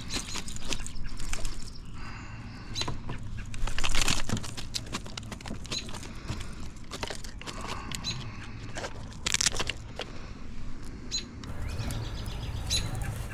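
A smallmouth bass flopping in a rubber-mesh landing net against the kayak: irregular knocks, slaps and splashes, loudest about four seconds in.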